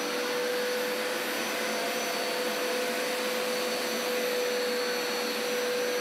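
Hoover Power Scrub Elite carpet cleaner running steadily as it scrubs and sucks spilled liquids out of a rug: one steady tone over an even hiss.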